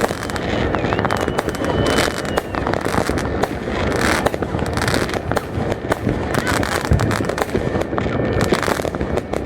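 Fireworks going off in rapid, dense succession: many overlapping bangs and crackles. A high whistle sounds for about two seconds near the start, and crowd voices can be heard underneath.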